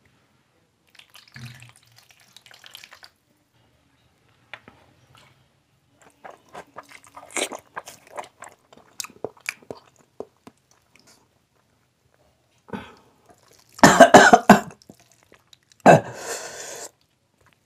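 Close-miked, wet chewing and smacking as a man eats rice and curry by hand. Near the end come two loud bouts of coughing, set off by the very spicy food.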